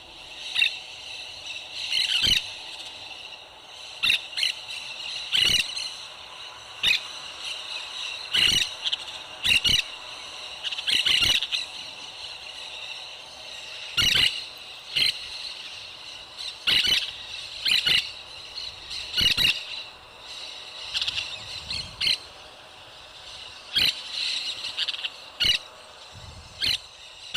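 Parrot squawking: short, high-pitched calls repeated every second or two, some in quick pairs, over a faint steady hum.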